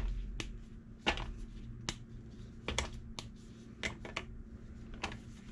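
Cold slabs of soy-and-paraffin wax brittle snapping as they are broken apart by hand, a string of sharp cracks about one every half second to second.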